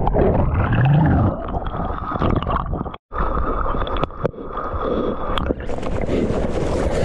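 Churning, splashing seawater from a breaking wave, heard through a waterproofed action camera at the waterline. It sounds muffled, with a brief dropout about three seconds in. A little past five seconds it opens up into brighter splashing as the camera clears the surface and the surfer paddles.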